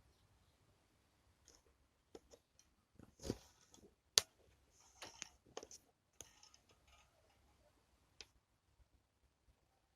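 Irregular soft clicks and light knocks with brief rustling between them, the sharpest click a little after four seconds in.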